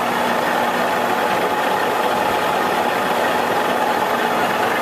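Victor gap bed engine lathe running under power, spindle turning with the power feed engaged: a steady even hum of motor and gearing, unchanging in level. The headstock runs quiet with good oil flow, a sign of a healthy gearbox.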